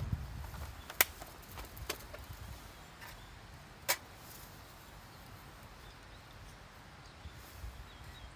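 Three sharp clicks, the first about a second in and the loudest, the others about two and four seconds in, over a faint steady outdoor background.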